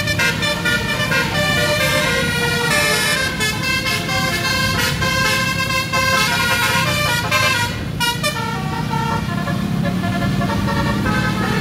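Multi-tone musical bus horn (basuri / telolet horn) playing a tune in quick stepped notes, over the engine and road noise of the motorcycles around it. The tune plays for about the first eight seconds, then gives way to traffic noise.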